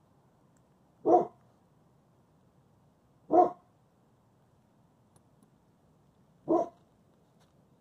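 A dog barking: three single barks, two to three seconds apart.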